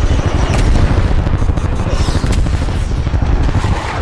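Fighter jets in flight with a rapid crackle of flares being fired and missile blasts over a dense, loud low rumble.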